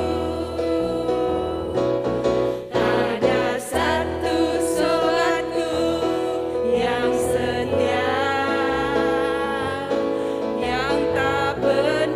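A Christian praise song: voices singing over an instrumental accompaniment with a moving bass line.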